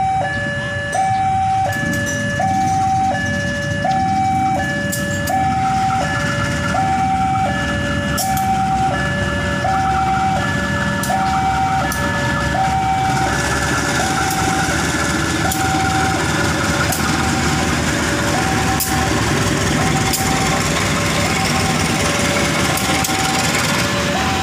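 Level-crossing warning alarm sounding a repeating two-tone chime, a high and a slightly lower tone taking turns about once a second, over the low running of a CC 201 diesel-electric locomotive's engine as it comes up to the crossing. From about halfway the rolling wheel noise of the loaded flat wagons passing over the crossing joins in, with occasional sharp clicks.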